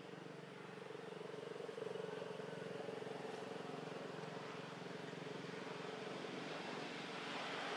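A steady engine drone in the background, faint, getting a little louder toward the end.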